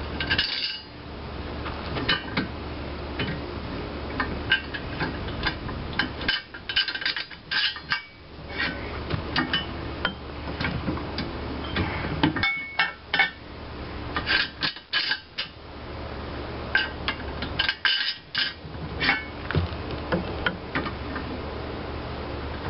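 Irregular metal clinks and knocks as a homemade lever press and the IHC engine side cover and shaft in it are handled and worked, over a steady low hum.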